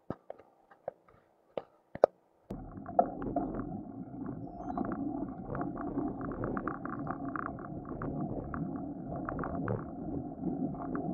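A few sharp clicks of cutlery on plates, then an abrupt change about two and a half seconds in to continuous roadside noise: low wind rumble on the microphone and traffic, with many small ticks and clicks.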